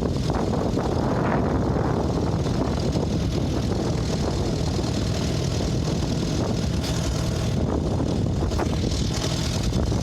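Vehicle engine running steadily at close range, a low even drone.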